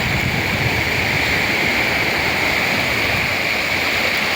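Steady, loud rush of water, like surf or splashing seawater close to the microphone.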